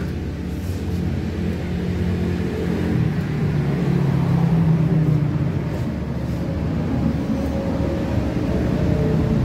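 An engine running steadily nearby: a low, even hum with a rumble underneath, swelling a little midway.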